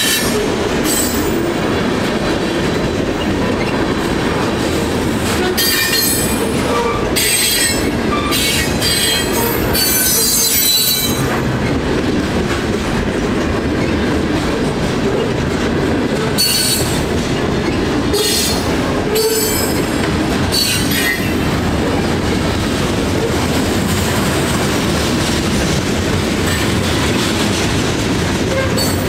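A freight train's cars rolling past with a steady rumble. High-pitched wheel squeals break in again and again, a second or so at a time.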